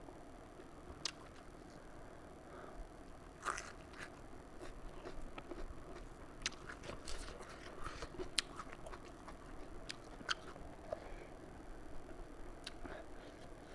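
Close-up eating sounds: a person chewing a mouthful of fish curry and rice, with irregular wet clicks and smacks of the mouth, a few of them sharper than the rest.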